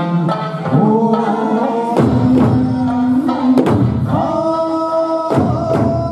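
Okinawan eisa music: a folk song sung in long held notes, punctuated by sharp strikes on hand-held paranku drums and a large barrel drum, a few around two seconds in and several more toward the end.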